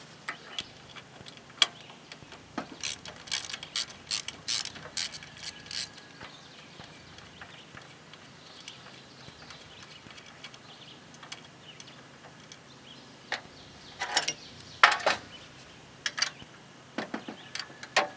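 A 3/8-inch-drive ratchet with socket and extension clicking in short spells as a starter-motor mounting bolt on a Briggs & Stratton single-cylinder engine is worked loose. There are two spells of rapid clicks, a few seconds in and again near the end, with a few single metallic clicks between them.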